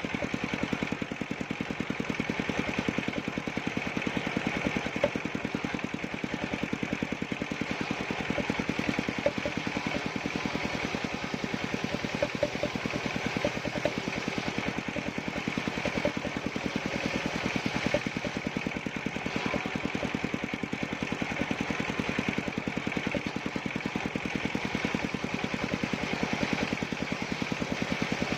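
Engine of an engine-driven wood-cutting machine running at a steady speed, with a rapid, even firing beat and no change in load.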